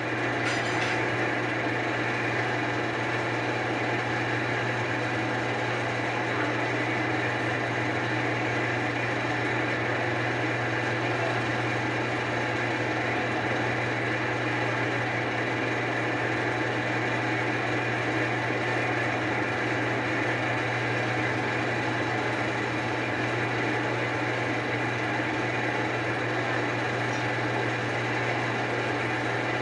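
Steady low hum of a running electric shop machine, with an even mechanical whir above it that does not change.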